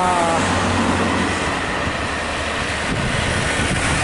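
A bus horn sounding with several pitches together, sagging slightly in pitch, stops about half a second in. After that come the low rumble of diesel bus engines and road noise as the coaches pass.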